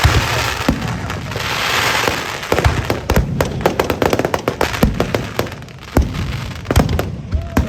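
Fireworks going off: a rushing, crackling hiss at first, then a rapid run of sharp cracks and bangs.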